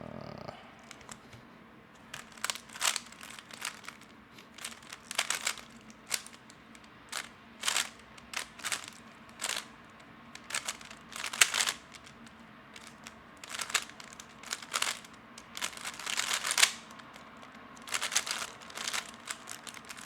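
Lubed magnetic 3x3 speedcube being turned fast during a solve: quick runs of plastic clicks and clacks as the layers snap into place, broken by short pauses between turning sequences.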